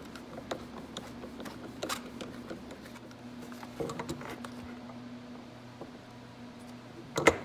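Small clicks, scrapes and rattles of a screwdriver and metal parts as a diaphragm carburetor is unscrewed and pulled off a plastic intake silencer on a wooden workbench, over a steady low hum. A sharper knock, the loudest sound, comes near the end.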